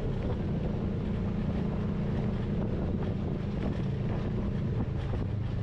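Polaris RZR side-by-side engine running steadily at low trail speed, with some wind noise on the microphone.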